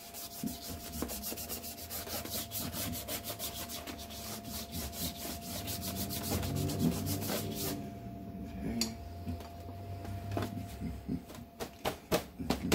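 Stiff bristle brush scrubbing acrylic paint onto watercolor paper in quick back-and-forth strokes, a dry rubbing scrape. The strokes grow sharper and more evenly spaced near the end.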